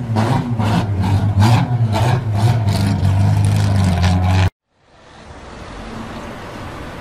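Loud intro sound effect of an engine revving, with sharp hits about twice a second over a low drone, cutting off suddenly. After a moment of silence, a quieter steady street and traffic noise fades in.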